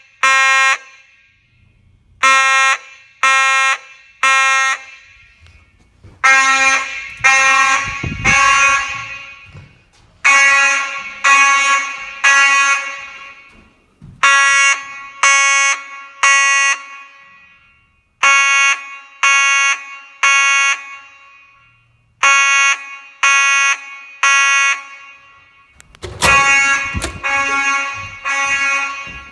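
Household fire alarms sounding the three-beep evacuation pattern: three loud beeps about a second apart, then a pause, repeating about every four seconds. In several cycles the beeps blur and echo into one another.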